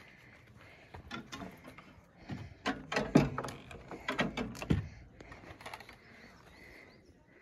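A run of knocks and rattles, loudest about three and four and a half seconds in, over a faint steady high tone.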